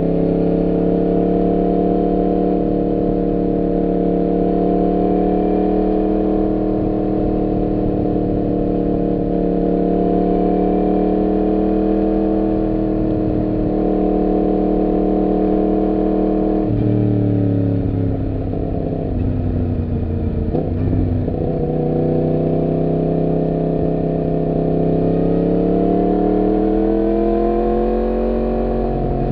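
Yamaha MT-10's crossplane inline-four engine running on the move under steady throttle, its note drifting gently. About 17 seconds in the note drops abruptly as the throttle closes, then from a few seconds later it builds again in a steady rise near the end.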